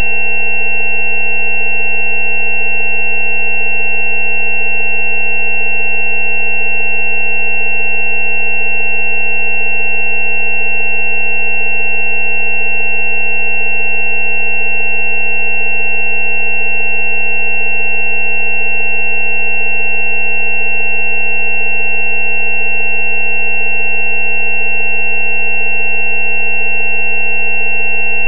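Several steady electronic pure tones held together without change, the 190 Hz 'healing frequency' among them as a low hum, with a high-pitched tone the loudest.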